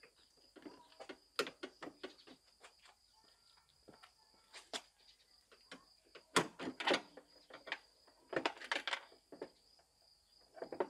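Irregular handling noise of clicks, knocks and rustles as lawn mower parts and packaging are handled, the loudest knocks about six and a half seconds in and a cluster near nine seconds, over a steady high-pitched tone.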